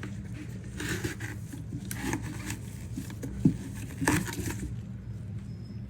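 A Clorox disinfecting wipe being handled and rubbed over a plastic AirPods case: short rubbing and scraping strokes about a second in, two seconds in and most strongly about four seconds in, over a steady low hum.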